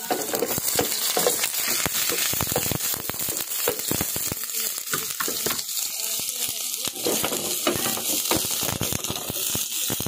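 Garlic cloves and sliced red onion sizzling and crackling in hot oil in a pan while being stirred around.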